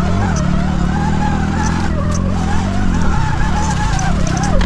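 Sur Ron electric dirt bike's motor whining, its pitch rising and falling with the throttle, over a steady low rumble.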